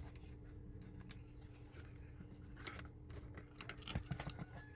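Small parts of a model kit being handled and pressed into place: scattered light clicks and taps, with a quick cluster of them near the end, over a faint steady hum.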